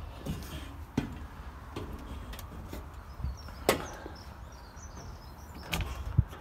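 Irregular footsteps and knocks on the sprayer's steel grating steps and platform, about nine scattered clanks, the sharpest about halfway through and near the end, over a steady low rumble.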